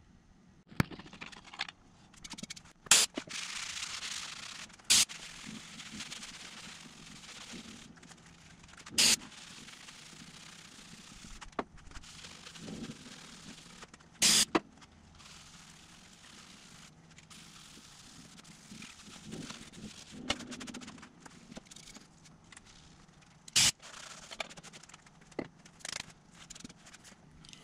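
Old built-up glue being cleaned off a disc sander's metal platen with brake parts cleaner: an aerosol can hisses as it sprays, with scraping and rubbing on the platen. Several sharp clicks sound throughout.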